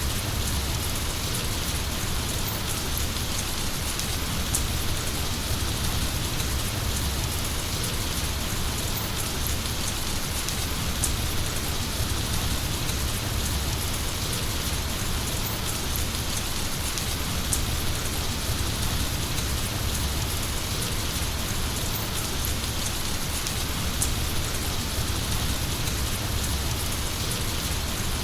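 Heavy rain falling steadily: an even, unbroken hiss with a low rumble underneath.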